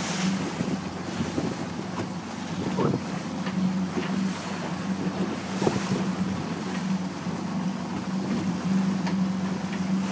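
Small motorboat's engine running steadily under way, with wind on the microphone and water splashing against the hull.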